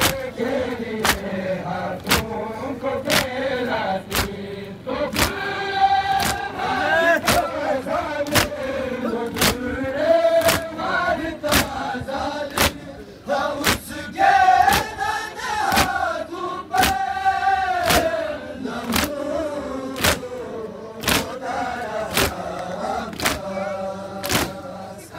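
A group of men chanting a noha in chorus, with unison chest-beating (matam) keeping a steady beat of a little under two strikes a second.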